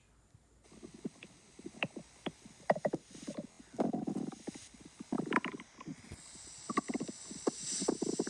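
Stomach growling: a string of short gurgles and pops, with longer bubbling rumbles about four seconds in, around five seconds, and near the end.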